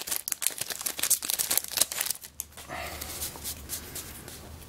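Foil wrapper of a Magic: The Gathering Modern Masters booster pack crinkling and crackling as the pack is pulled open and the cards slid out. About halfway through it gives way to fainter handling of the card stack.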